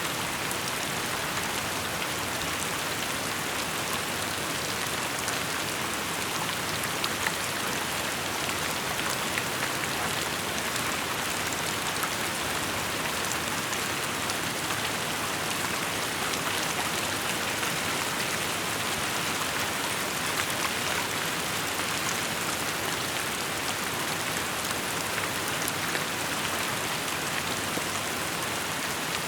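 Steady rainfall pattering on surfaces, an even hiss of drops with the odd sharper drip standing out.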